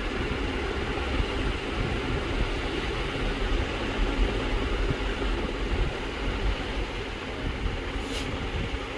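Steady low rumble and hiss of background noise, with no distinct knocks or clicks, and a faint tick about 8 seconds in.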